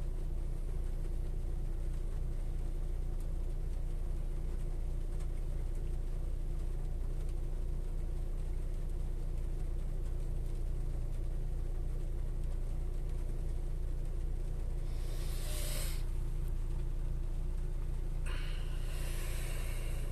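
Car engine idling, a steady pulsing low rumble heard inside the cabin, with a brief hiss about fifteen seconds in and another near the end.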